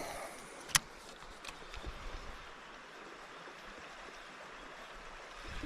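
River water running steadily, with one sharp click about a second in.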